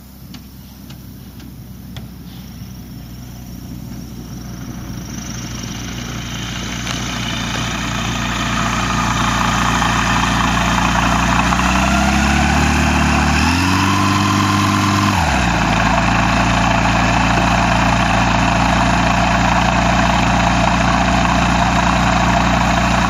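Pipistrel Virus ultralight's Rotax 912 flat-four engine and propeller, taxiing on grass and growing louder as the plane approaches over the first several seconds. About twelve seconds in the engine revs up briefly for two to three seconds, then it drops back to a steady idle.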